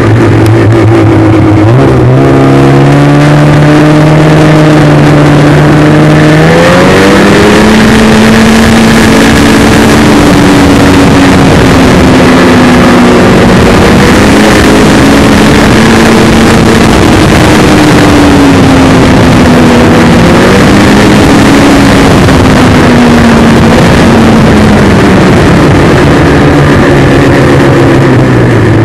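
Snowmobile engine running loud under way. Its pitch climbs as it speeds up about two seconds in and again around six seconds, rises and falls with the throttle through the middle, and drops back near the end as it slows.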